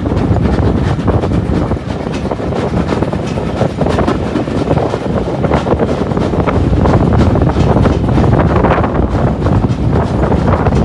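Steam-hauled train's coaches rumbling and rattling along the track, heard through an open carriage window, with wind buffeting the microphone.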